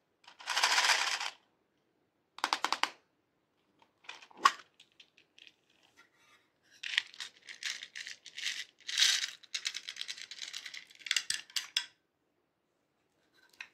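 Small hard plastic charms rattling inside a clear plastic box as it is shaken in two short bursts, then a run of many quick clicks and rattles as the charms are tipped out onto clear slime in a glass dish.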